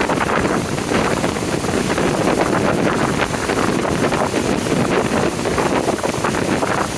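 Wind buffeting the microphone: a loud, steady rushing noise that flutters with the gusts.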